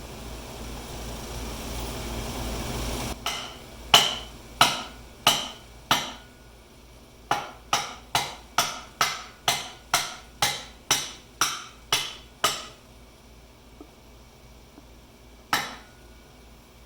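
Hammer striking metal, driving greased wheel bearings into a garden tractor wheel hub: four blows, then a quick run of about a dozen at roughly two a second, and one last blow near the end, each with a short metallic ring.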